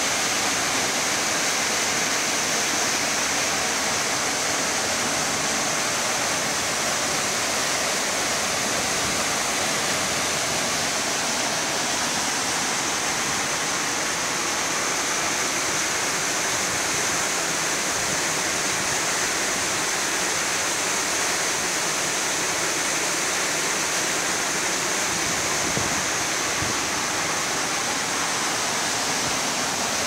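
Waterfall pouring into a rocky pool, a steady, unbroken rush of falling and churning water.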